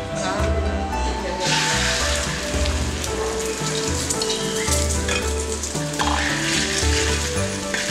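Beaten egg hitting hot rapeseed oil in a large wok, frying with a loud sizzle that starts about a second and a half in, as a metal spatula pushes the egg around. Background music with a bass line plays throughout.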